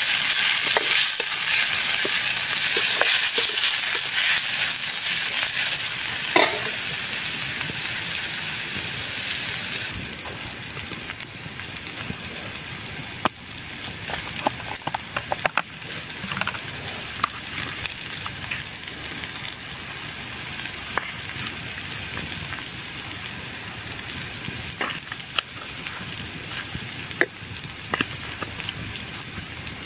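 Chopped tomatoes and onions sizzling in a frying pan over a wood fire while being stirred with a spoon. The sizzle is loudest for about the first ten seconds, then settles to a softer frying with scattered sharp clicks.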